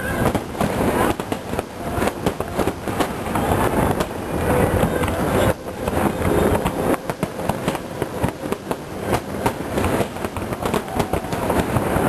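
Fireworks display: aerial shells bursting in rapid, overlapping succession, a continuous barrage of booms and crackling with no pause.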